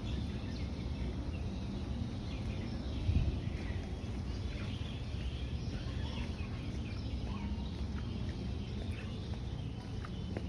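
Low, steady rush of ocean surf, with a brief louder surge about three seconds in, and many small birds chirping over it.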